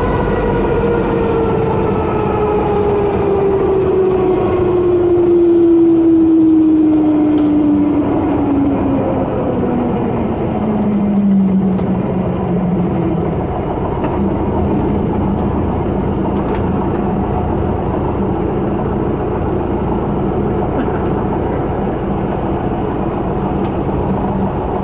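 Cabin noise of a Velocity S-FG's 180-horsepower pusher engine at idle on the landing rollout. Its note falls smoothly in pitch over the first dozen seconds as the aircraft slows, then holds steady and low, over a continuous rumble of tyres and airflow.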